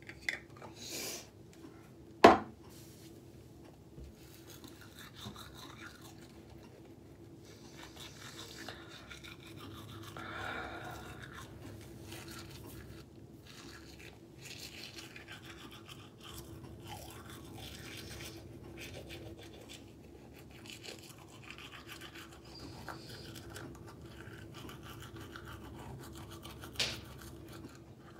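Manual toothbrush scrubbing teeth in irregular strokes. A sharp click about two seconds in, and another near the end.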